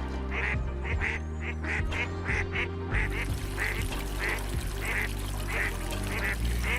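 Ducks calling in a quick series of short quacks, about two to three a second, over background music with sustained low notes. A steady hiss joins in about three seconds in.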